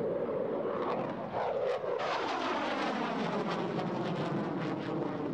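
Fighter jet flying past: a loud steady jet noise whose pitch climbs and then sweeps down from about two seconds in as the aircraft passes.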